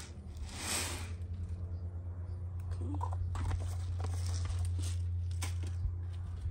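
Osmocote fertilizer granules shaken from a container's perforated lid onto potting soil, giving two short rattling hisses about a second apart near the start. A steady low drone runs under it, with a few small clicks of handling.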